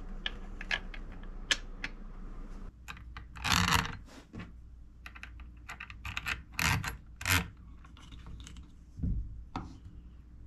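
Small metal chainsaw parts being handled and fitted by hand: light clicks throughout, with several short, louder clatters and rattles from about three seconds in.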